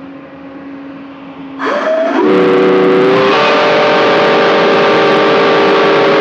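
A paddle steamer's three-chime steam whistles, blown on 10-bar steam, sounding one long signal blast. It starts about one and a half seconds in with a quick upward slide as the steam comes on, then holds a steady chord of several notes that steps slightly higher about three seconds in.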